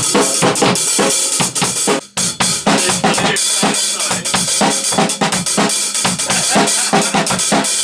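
Acoustic drum kit played live in a small studio room: a busy beat of kick, snare and cymbals with a short break about two seconds in.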